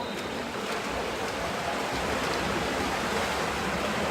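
Water splashing in a pool as water polo players swim and contest the ball, a steady wash of noise with a few faint knocks.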